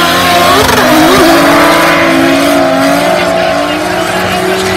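Drift car engine held at high revs through a long slide, with tyre squeal and the roar of wheelspin. It is loudest about a second in, then slowly fades as the car moves away.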